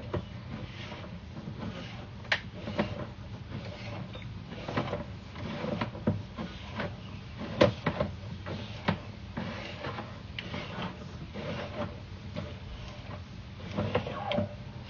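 Sewer inspection camera push cable being fed through a drain line: irregular clicks and knocks over a steady low hum.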